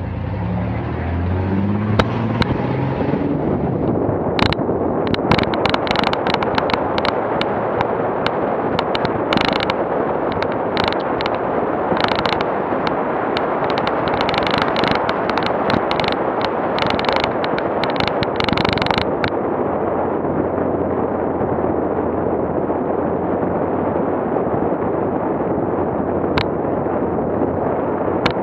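An off-road vehicle driving on a rough dirt road: the engine revs up near the start, then a steady rumble of tyres and wind noise, with many sharp knocks and rattles through the middle stretch that ease off after about 19 seconds.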